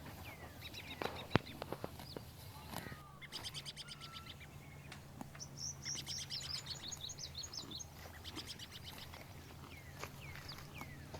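Small birds chirping, with short falling calls and fast trilling bursts, over a steady low hum. A few sharp clicks come about a second in.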